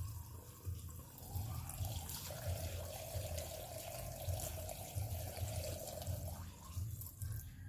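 Two-stroke fuel mix (gasoline with 2T oil) being poured into a container, a steady liquid-filling gurgle lasting about four seconds in the middle and then stopping.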